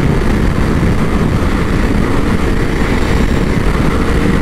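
Wind noise on a helmet-mounted microphone at highway speed, over the steady drone of a Yamaha R1's inline-four engine cruising at constant throttle.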